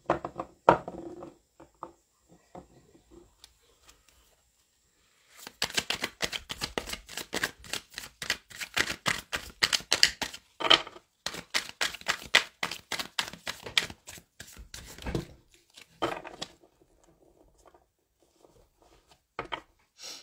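A deck of tarot cards being shuffled by hand: rapid papery flicking and clicking of the cards for about ten seconds in the middle, with a few separate taps of the cards before and after.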